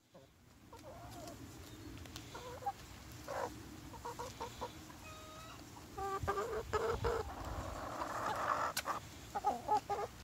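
Domestic hens clucking in short calls on and off while pecking at a cauliflower and its leaves.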